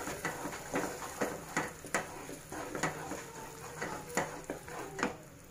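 Wooden spatula stirring and scraping a thick milk and milk-powder mixture in a non-stick kadhai, in irregular strokes about two a second.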